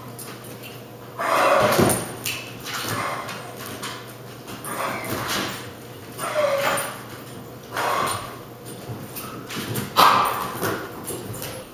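A dog barking repeatedly, about six barks spaced a second or two apart, at a broom being swept across the floor.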